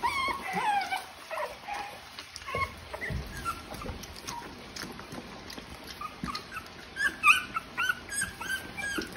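Three-week-old American Bully puppies whimpering and squeaking in short high calls, with a falling whine at the start and a quick run of squeaks near the end.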